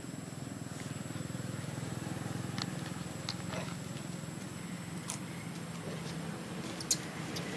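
Steady low hum of a motor running, with a few faint clicks and rustles over it.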